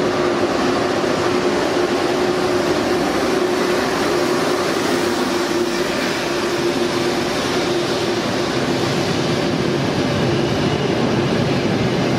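Red Frecciarossa high-speed electric train rolling past alongside a station platform: a steady rushing noise with a faint steady hum.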